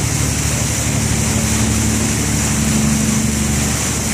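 Tour boat's engine running steadily while under way, a low even hum with a continuous rush of water beneath it.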